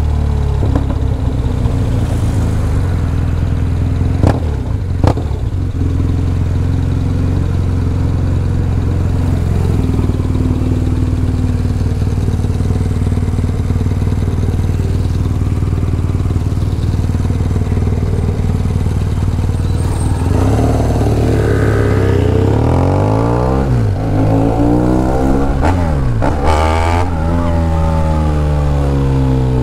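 BMW R1200GS boxer-twin engine idling steadily, with two sharp clicks about four and five seconds in. About twenty seconds in the bike pulls away, and the engine pitch rises and drops with each gear change.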